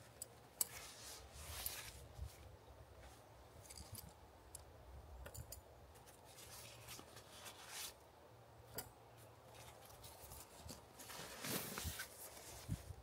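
Faint, scattered small clicks and short rustles at irregular intervals, with a faint low hum beneath.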